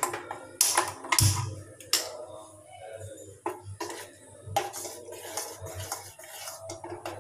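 A spoon stirring a thin milky mixture in a stainless-steel saucepan, clinking and scraping against the pan at irregular intervals, with a few louder knocks in the first two seconds.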